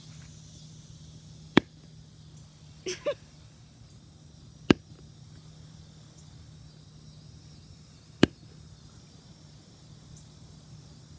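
Sharp snaps from a Yeti Boomers ball-launching fidget toy being played with: three single snaps a few seconds apart, with two short squeaky blips about three seconds in.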